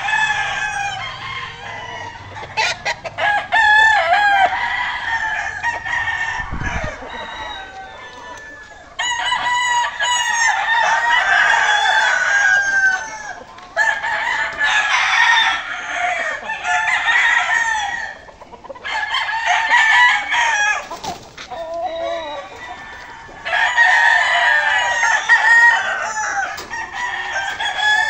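Several gamecocks crowing, their calls overlapping in repeated bouts of a few seconds each with short lulls between.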